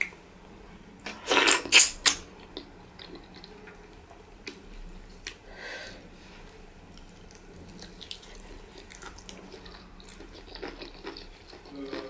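Close-miked eating sounds of pounded yam fufu and light soup eaten by hand: wet squelching of fingers in the soft fufu and soup, with chewing and mouth noises. There is a loud cluster of wet sounds about a second in, then small scattered clicks.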